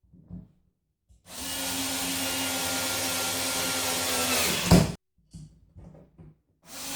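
Power drill running steadily for about four seconds, with a sharp jolt just before it stops; a few small handling knocks follow, and the drill starts again near the end.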